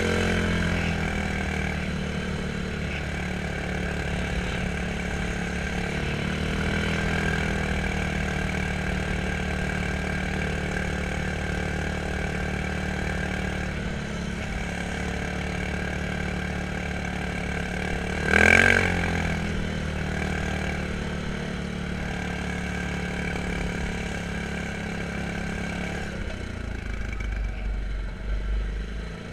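Quad bike (ATV) engine idling steadily, with one brief louder burst about two-thirds of the way through and a low rumble near the end.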